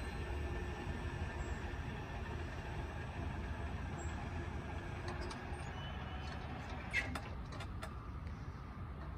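Steady low rumble of the departing train and the street while the railroad crossing gate arms rise, with one sharp click about seven seconds in as the gates come upright.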